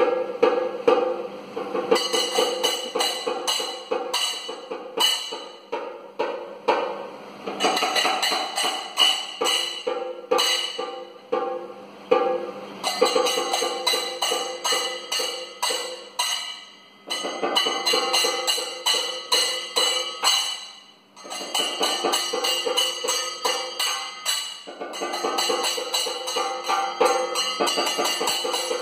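Live Kathakali percussion accompaniment: fast, steady drum strokes with ringing metallic tones. It drops away briefly twice, about 17 and 21 seconds in.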